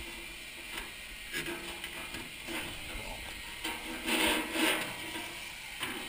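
Corrugated vacuum hose being worked inside an oil furnace's heat exchanger, clattering and scraping against the sheet metal as the soot is vacuumed out. There are two louder scrapes about four seconds in.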